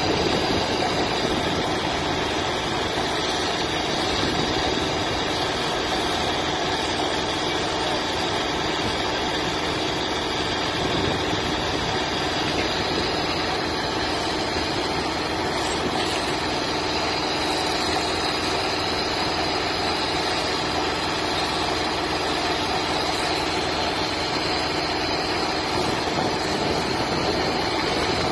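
High-pressure insulator-washing rig running steadily: a constant engine drone under the hiss of a water jet spraying porcelain substation insulators.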